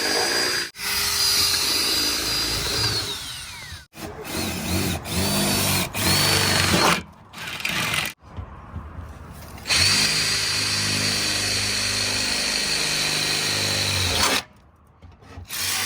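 Power drill making mounting holes in the car's body panel. It runs in several goes with a steady whine: a short run, a longer one that winds down, a few quick on-off bursts, then a long steady run near the end.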